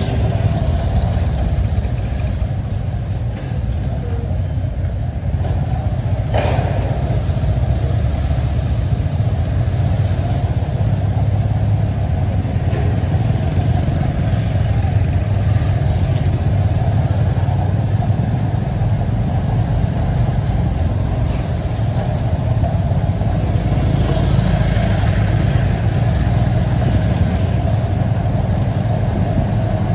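Steady vehicle noise: a continuous low rumble that holds at an even level throughout.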